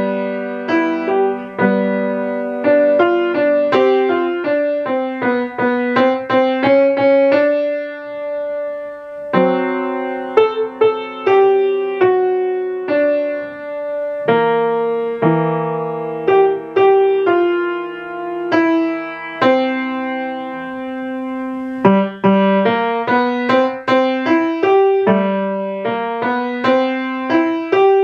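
Grand piano played solo: a boogie-style piece in quick rhythmic notes and chords, with one chord held briefly about eight seconds in before the playing picks up again.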